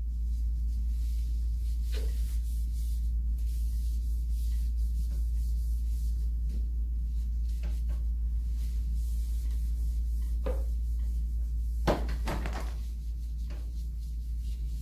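Light scattered knocks and clacks of a plastic basket on a cleaning trolley as it is handled and wiped, the sharpest about three-quarters of the way through, over a steady low hum.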